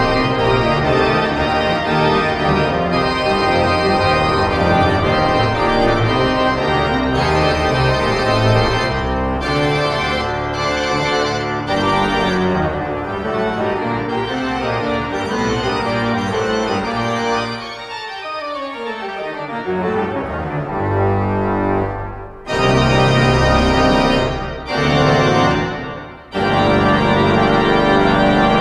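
Noehren pipe organ playing loud, full sustained chords with deep pedal bass. About two-thirds of the way in it drops back for a quick falling run, then returns to loud full chords broken by short gaps.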